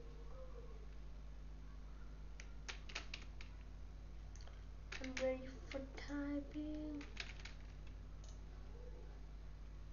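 A few scattered computer keyboard key clicks, with a short hummed vocal sound about five seconds in, over a low steady electrical hum.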